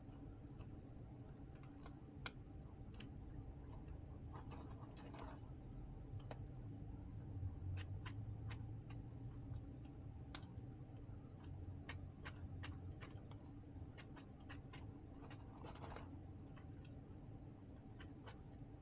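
Baby chicks moving about in a plastic brooder tote: faint, irregular taps and clicks, with two short scratchy rustles, over a steady low hum.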